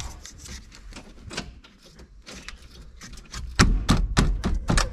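Faint scattered clicks, then from about three and a half seconds in a fast run of louder clicks and knocks, several a second, from plastic plug-in relays being worked in the truck's under-dash relay panel.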